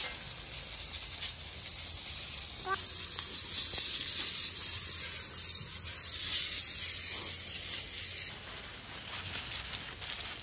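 Steady hiss of water spraying from a garden hose during a horse's bath.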